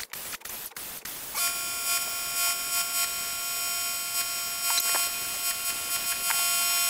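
Die grinder with an abrasive pad starting up about a second and a half in and running with a steady high whine and hiss, scrubbing dirt off the edge of a golf cart electric motor's housing.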